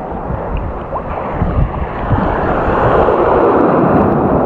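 A wave surging in and washing over the shallow reef, the rush of surf swelling to its loudest about three seconds in, with wind buffeting the microphone.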